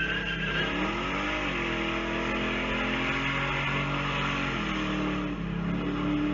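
A car engine revving up and down, then running at steady engine speeds that shift a few times.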